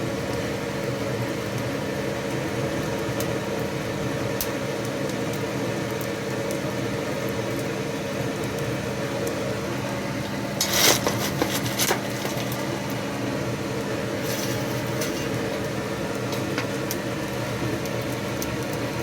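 Forge air blower running with a steady hum, with faint ticking and crackling from the kindling fire. About eleven seconds in comes a short clatter of small anthracite pieces going onto the fire.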